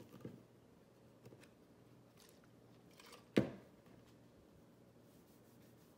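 Faint rustles and clicks of a nail polish remover bottle and cotton pads being handled, with one sharp knock about three and a half seconds in.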